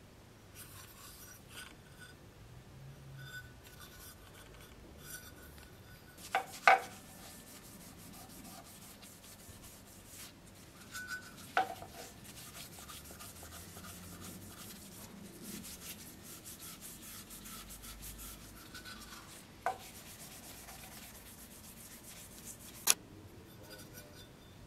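Faint rubbing as a small steel scabbard tip is worked by hand, broken by a handful of sharp clicks, the loudest about six and a half seconds in.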